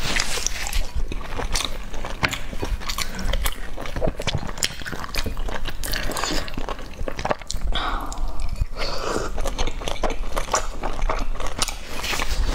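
Close-miked chewing and lip-smacking of soft boiled dumplings dipped in chili oil, with many short mouth clicks and smacks.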